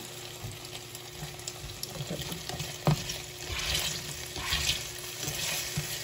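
Diced potatoes frying in a frying pan and being turned with a slotted spatula: a steady sizzle with scrapes and light knocks of the spatula on the pan, one louder knock about three seconds in. The sizzle grows stronger past the middle.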